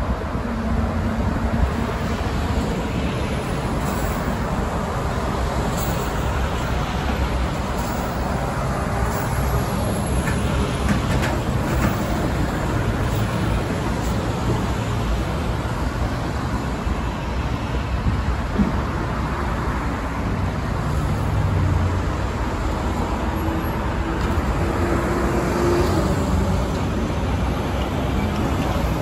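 Road traffic with buses driving past: a steady low rumble of diesel engines and tyres, with faint engine tones rising and fading as vehicles go by.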